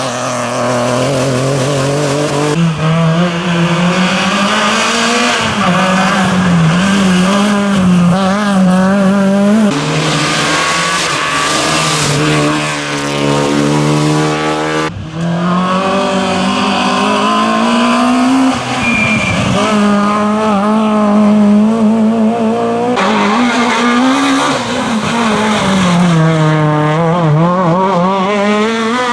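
Rally car engines revving hard, the pitch rising and falling again and again as the cars accelerate and back off, several passes in a row joined by abrupt cuts.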